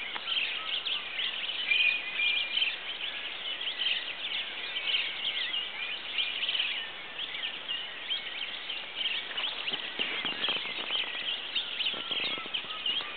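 Dawn chorus of many birds chirping and calling over one another, a dense, continuous high-pitched chatter.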